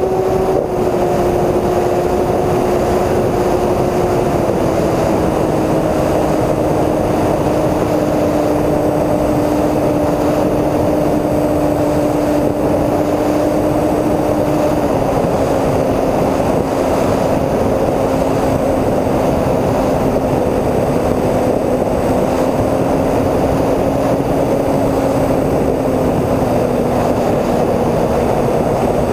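Twin electric motors and propellers of a Multiplex TwinStar II RC plane in flight, heard from its onboard camera: a steady propeller hum over rushing wind. The hum steps down in pitch about four seconds in and again about fifteen seconds in.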